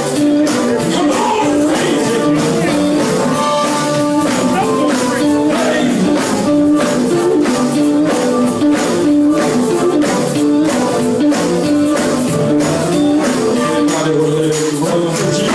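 Live gospel band music with a steady beat, the band playing with some singing.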